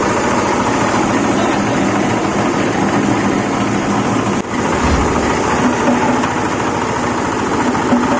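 Small fish-meal grinding machine running steadily, a loud motor-and-mill noise with a fast, even pulsing.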